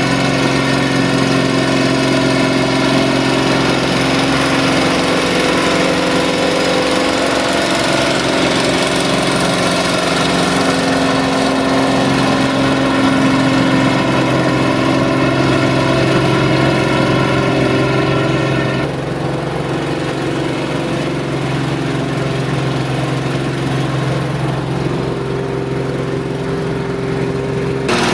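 Diesel farm tractor engine running steadily under heavy load while pulling a plough through mud. About two-thirds of the way through, the sound changes abruptly to a slightly quieter, duller engine note.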